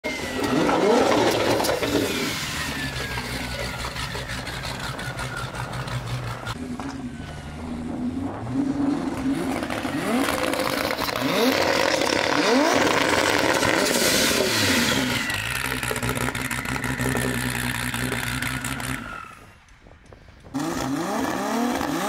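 Toyota Cressida drag car's 2JZ straight-six engine revving in repeated sharp rises in pitch, with steadier stretches of running between them. The sound drops away briefly near the end, then the engine picks up again.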